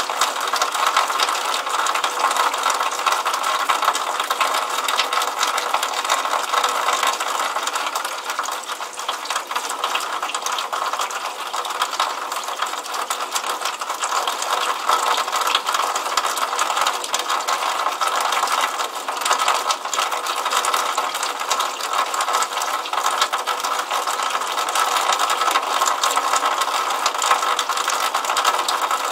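Water running out of a downspout and splashing onto wet paving: a steady, dense crackle of small splashes with no deep rumble.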